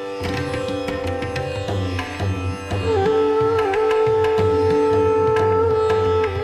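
Instrumental background music: plucked-string melody over long held notes that bend in pitch now and then, with a low drum pulse coming in just after the start.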